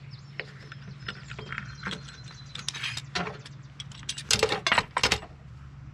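Steel clamps being loosened and lifted off a cast iron skillet on a steel welding table: scattered metallic clicks, rattles and clanks, the loudest a quick cluster of knocks about four to five seconds in, over a steady low hum.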